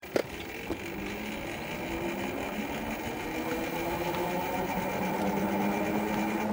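Eahora Romeo 2 e-bike hub motor whining under throttle: a steady hum of several tones that grows slowly louder, after a sharp click right at the start. This is the abnormal motor noise the owner hears when he throttles.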